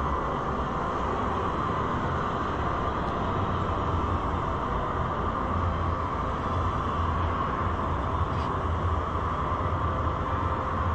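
Steady low hum and hiss of background noise in a large indoor hall, with no distinct events.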